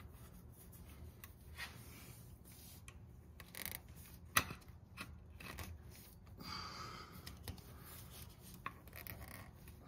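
Faint rubbing and small clicks of a rubber spark plug boot being worked down by hand onto a new spark plug on a Honda Pioneer 700-4 engine. The sharpest click comes about four and a half seconds in, and there is a stretch of rubbing a couple of seconds later.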